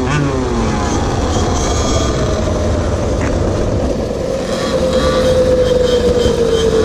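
GoPed GoQuad's small engine heard from on board, its pitch sinking slowly as the machine coasts at low speed, over a steady rumble.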